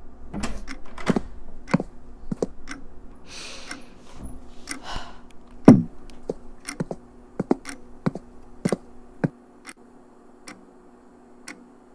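Sparse room sound effects: a run of sharp clicks and knocks, two short hisses, and one heavy thump just before six seconds in, over a faint steady hum.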